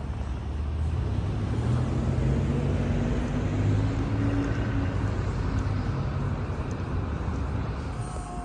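A car driving past close by. Its low engine hum and tyre noise grow louder toward the middle and then slowly fade.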